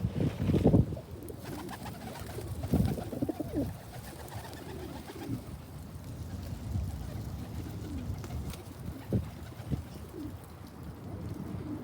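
Pigeons cooing: repeated low calls that rise and fall, with a few sharp taps near the end.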